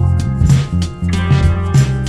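Background blues music with guitar, bass and drums playing a steady beat.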